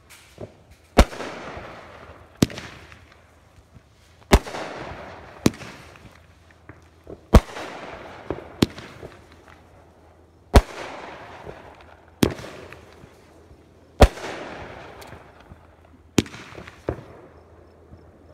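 Roman candles firing one shot after another, with about a dozen sharp pops spaced one to two seconds apart. Each pop is followed by a fading hiss.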